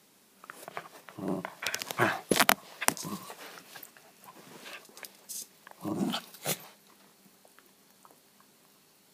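West Highland White Terrier vocalizing in short bursts during play, once about a second in and again around six seconds in, with a few sharp clicks around two to three seconds in.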